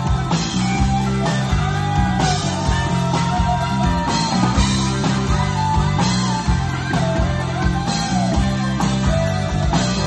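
Live rock band playing: an electric lead guitar solo with bending, sliding notes over bass, drums and rhythm guitar.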